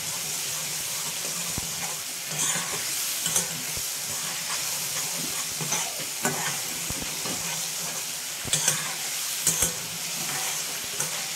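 Tomato-and-spice masala sizzling in oil in a metal kadhai while a spatula stirs it, with scattered clicks and scrapes of the spatula against the pan. The masala is being fried down in its own tomato purée, with no water added.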